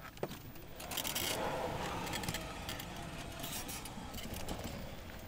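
Golf cart tyres skidding and spinning on loose dirt in a power slide, throwing up a rooster tail of dust: a steady gritty scraping rush that starts about a second in.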